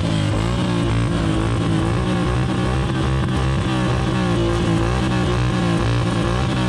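Can-Am ATV engine revving up and down again and again, rising and falling in pitch, while the machine is hung up on a log.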